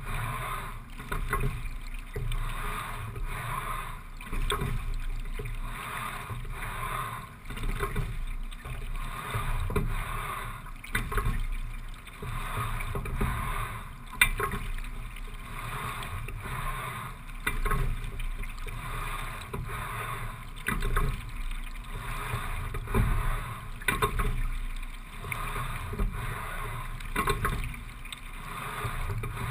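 Single racing scull being rowed at a steady-state pace of about 17-18 strokes a minute: water rushing along the hull, rising and falling with each stroke every three to four seconds, with sharp knocks of the sculls in their oarlocks, one louder knock about halfway through.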